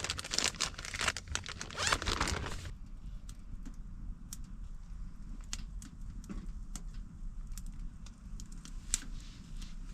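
Rustling and crinkling handling noise for about the first three seconds, then faint scattered clicks.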